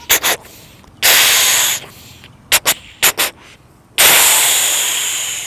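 A man imitating a moving train with his mouth and cupped fist: quick chuffing puffs alternating with long hissing blasts, two puffs at the start, a hiss about a second in, three more puffs, then a long hiss about four seconds in that slowly fades.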